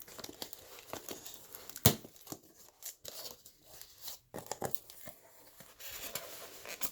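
Shipping-box packaging being handled and torn open by hand: irregular crinkling and tearing, with one sharp knock about two seconds in.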